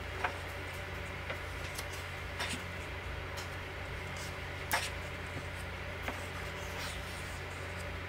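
Paper pages of a hardcover photobook being turned and handled, with several short crisp paper flicks and rustles, the loudest near the middle. A steady low hum runs underneath.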